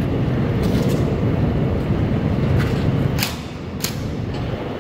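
A steady low rumble with several sharp clicks or snaps. Two of the clicks, loudest, come a little after three seconds in, and the rumble eases slightly at about the same point.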